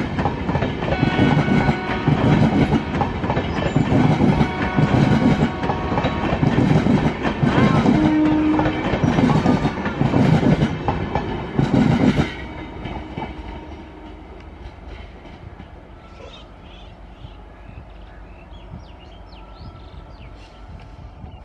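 Passenger coaches of a diesel-hauled train rolling past, with a rhythmic wheel clatter over the rail joints about once a second and a brief low tone about eight seconds in. About twelve seconds in, the sound drops sharply to a much quieter rumble as the last coaches pass.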